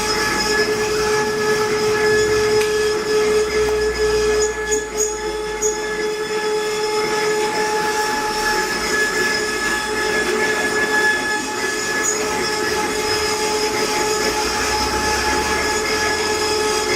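CNC wood-carving router running, its spindle whining at a steady high pitch over a rough cutting noise.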